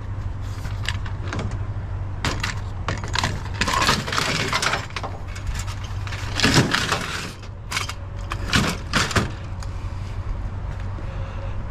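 Scrap being handled and moved: irregular knocks, clinks and rattles of hard objects, loudest in a few bursts near the middle, over a steady low hum.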